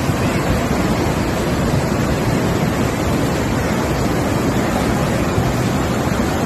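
Muddy flash-flood torrent rushing past, a loud, steady noise of churning water.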